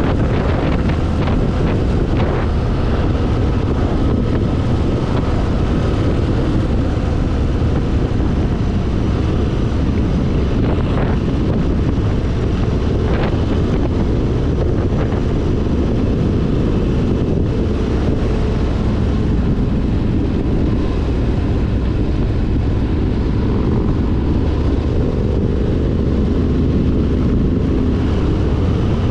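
Motorcycle cruising steadily: a constant engine drone mixed with heavy wind rush on the microphone.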